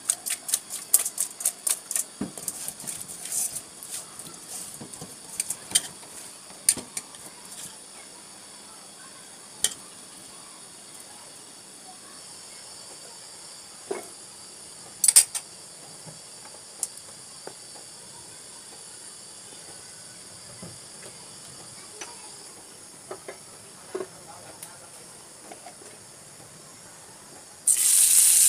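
Pieces of jhatka (young) hilsa being tossed by hand in a steel bowl with salt and turmeric: a fast run of clicks and clatters for the first several seconds, then scattered knocks. Near the end a piece of hilsa goes into hot oil in a frying pan, and a loud, steady sizzle starts abruptly.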